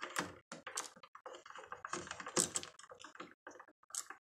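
Phillips screwdriver turning and tightening the terminal screws on a single-pole light switch, with the switch handled in the hand: a faint, irregular run of small clicks and scrapes.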